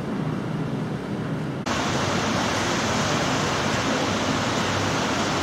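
Steady rush of wind and sea water, changing abruptly about one and a half seconds in to a louder, brighter rush.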